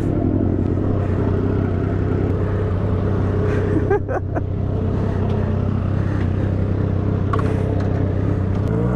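Motorcycle engine running at a steady speed while being ridden, its pitch holding even, with wind and road noise.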